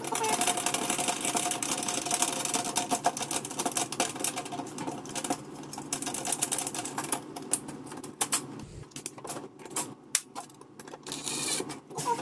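Rapid metallic clicking and rattling as toggle bolts are hand-tightened through a steel microwave mounting plate held against the wall, thinning out after about eight seconds.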